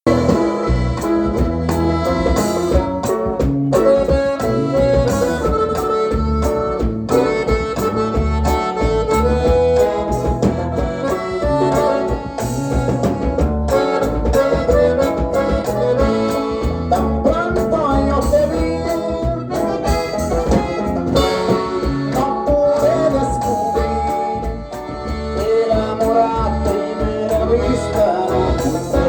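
A live band playing an instrumental passage: a melody line over a strong, steady bass and beat.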